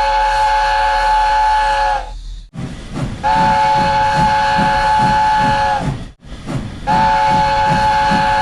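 Multi-tone steam train whistle blowing three long, steady blasts, each about two and a half seconds, with short gaps between them. A low rhythmic pulsing, about two to three beats a second, runs under the second and third blasts.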